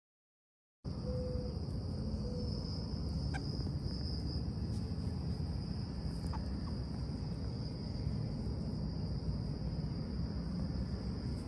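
Insects droning steadily in a high continuous tone over a low rumble of background noise, starting suddenly about a second in.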